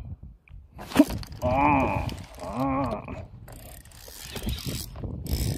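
A sharp click, then two short wordless vocal sounds that rise and fall, then the clicky mechanical noise of a spinning fishing reel being wound in while a fish is on the line.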